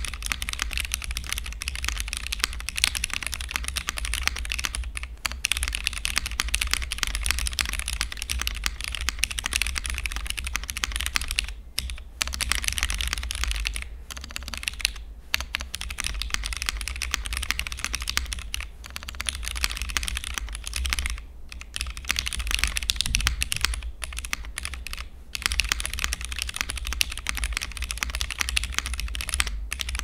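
Fast, continuous typing on a Vega custom mechanical keyboard fitted with retooled Cherry MX Black linear switches and GMK keycaps, with no foam in the case. The key clacks run in a dense stream, with a few brief pauses of about half a second.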